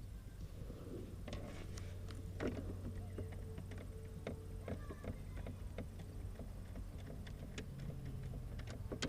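Scattered light clicks and knocks of plastic dash trim and wiring connectors being handled and unplugged, over a low steady hum.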